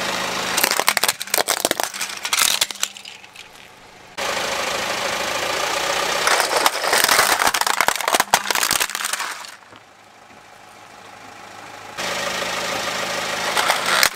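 Plastic toys cracking and crunching under a car tyre as it rolls onto them, in two long runs of snapping and crackling. The car's engine idles at the start and again near the end.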